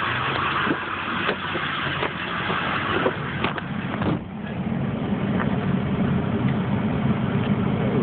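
An engine running steadily at a low hum, with clicks and knocks from the phone being handled over the first half and a sharper knock about four seconds in, after which the hiss drops away and the engine hum is left.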